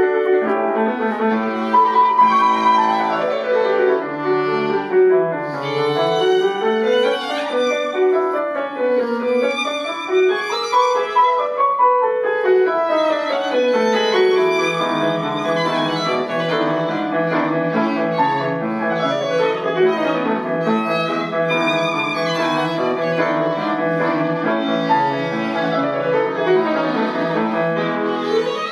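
Background music: violin playing melodic runs that rise and fall over piano accompaniment.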